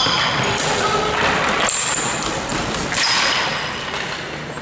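Ball hockey play: sneakers squeaking on the court in short high chirps, with sticks and the ball knocking sharply several times.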